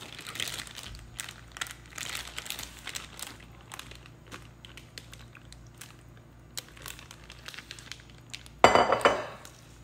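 Plastic zip-top bag crinkling and rustling as marinated chicken wings are tipped from a glass bowl into it and pressed down inside, with light clinks of the glass bowl. There is a louder burst of rustling about a second before the end.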